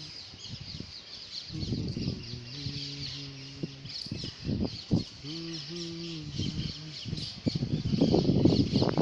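A dense chorus of small birds chirping continuously, many short quick calls overlapping. Twice a low, steady pitched tone is held for about a second and a half under the birds, and near the end a louder rush of noise comes in.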